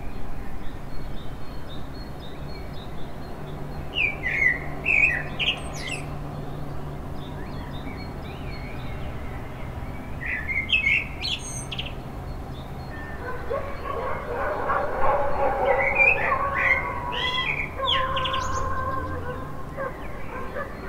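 Birds chirping in short bursts of song, three bouts in all. From about two-thirds of the way through, dogs bark in the distance, under a steady low hum of city background.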